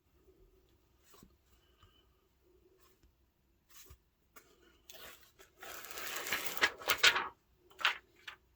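Packaging being unwrapped by hand: small clicks and soft rustles, then a loud stretch of rustling and crinkling lasting about a second and a half, and one more short rustle near the end.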